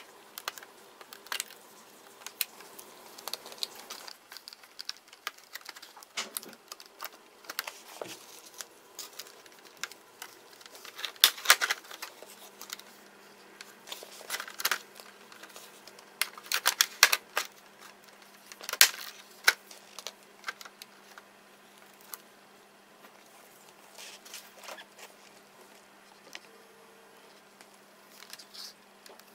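Irregular clicks, taps and short scrapes of plastic casing and small metal parts being handled and pried as a Toshiba Satellite Pro L450 laptop is taken apart by hand. The clicks come in short clusters, the loudest around the middle.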